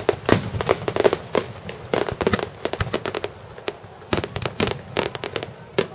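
Aerial fireworks going off in a finale barrage: many sharp bangs in quick, irregular succession, bunched in clusters.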